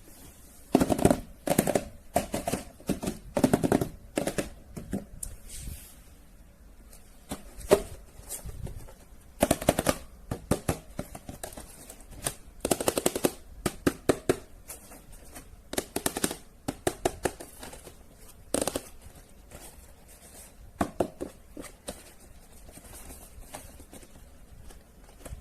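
Plastic being handled: bursts of rapid, sharp crackling clicks, coming again and again with short quiet gaps between.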